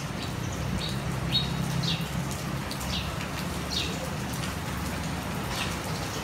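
Rain falling steadily on stone paving, with a small bird giving short, falling chirps about once a second.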